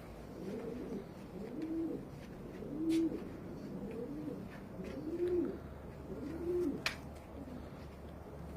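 Domestic pigeons cooing: a run of low, rising-and-falling coos about once a second that stop about seven seconds in, with a couple of sharp clicks.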